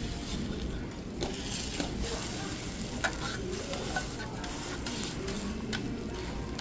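Food sizzling as it fries, a steady hiss with a few light clicks of utensils and faint chatter underneath.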